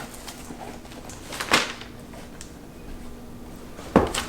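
Quiet handling of a gift box and its packaging: one rustle or scrape about a second and a half in and a soft knock near the end, over a faint steady hum.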